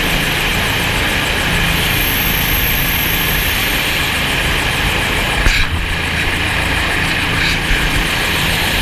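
Helicopter running steadily and loudly, rotor and engine noise with a low throb.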